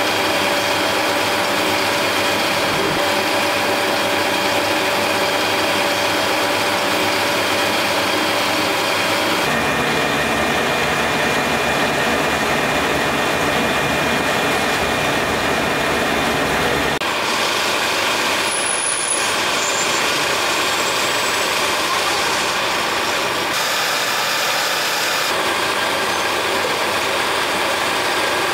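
Steady drone of running factory machinery, with several constant tones that shift abruptly a few times.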